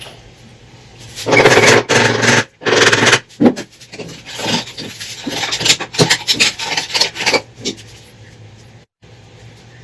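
Scraping and rubbing as transmission parts are worked on, in irregular strokes from about a second in until near the end.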